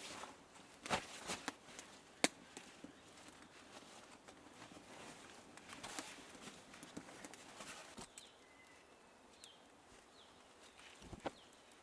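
Rustling of cloth and a bag as they are handled, with scattered sharp clicks, the sharpest about two seconds in. A few faint short high chirps come in the second half.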